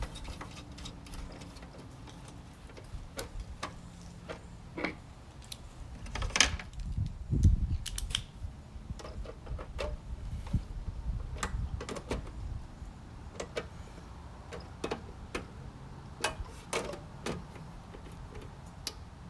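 Irregular light clicks and taps of small hand tools, screws and parts being handled on a truck's gauge cluster during gauge installation.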